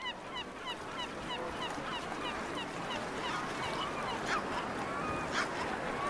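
Many birds calling: quick, high, rising-and-falling chirps about five a second for the first half, then lower, longer calls with a few sharp cries, over a steady rushing noise.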